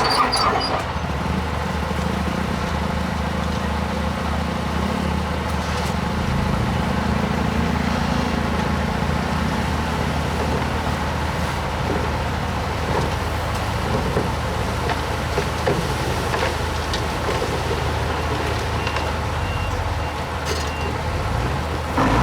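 Diesel engine of heavy earth-moving machinery running steadily, with a few scattered knocks and clanks.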